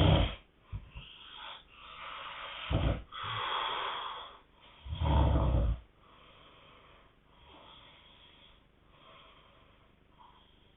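Sleeping people snoring: a few loud, deep snores, the longest about five seconds in, between breathy inhales and exhales, then only soft breathing for the second half.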